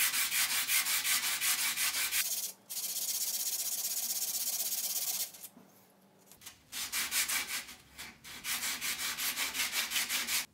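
Cuttlefish bone rubbed back and forth on sandpaper, flattening its face for a casting mould. Quick, rasping, evenly repeated strokes, then a steadier stretch of continuous rubbing and a short pause. The strokes start again and stop abruptly.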